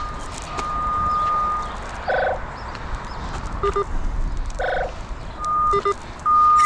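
Handheld cable-locator receiver (Radiodetection RD8200) sounding its steady high signal tone while tracing the tone on a buried electric line. The tone holds for about a second, drops out, and comes back near the end, with two short chirping beeps and a few quick double beeps in between.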